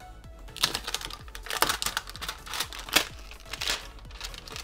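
Thin clear plastic shrink wrap being peeled and crumpled off a plastic toy cup: a run of sharp crinkling rustles, loudest about one and a half and three seconds in.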